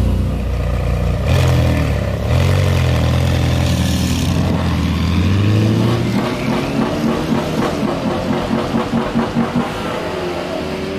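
Ferrari 488 GTB's twin-turbo V8 on a custom exhaust, together with a Porsche 911's engine, running at a drag-race start with a low, steady note. About six seconds in, the cars pull away: the engine sound pulses several times a second, and the pitch rises near the end.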